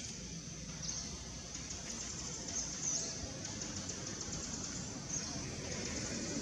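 Outdoor ambience: a steady high-pitched buzzing chorus over a low rumble.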